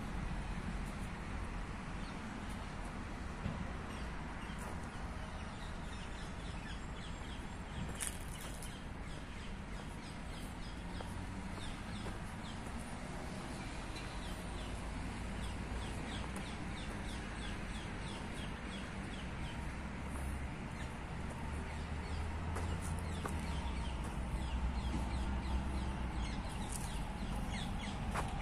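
Birds calling in the park trees, with a run of quick repeated chirps around the middle, over a steady low rumble.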